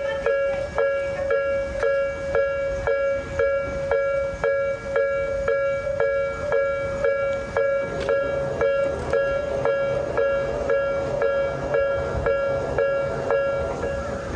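Japanese railroad crossing warning bell clanging steadily at about two strikes a second, with a low rumble underneath.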